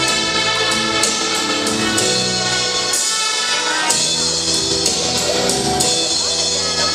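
Instrumental backing-track music of a Vietnamese Catholic song, with sustained chords and a steady beat, playing between sung lines.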